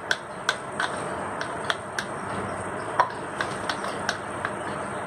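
About a dozen light, irregular clicks and taps of small hard objects over a steady background hiss; the loudest comes about three seconds in.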